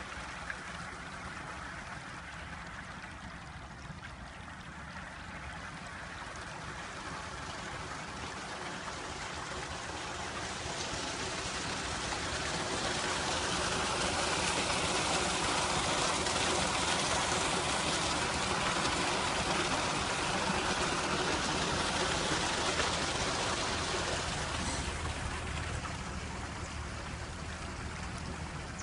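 Water running from a leaking underground pipe into a hole and flowing across a flooded field, a steady rushing that grows louder through the middle and then eases.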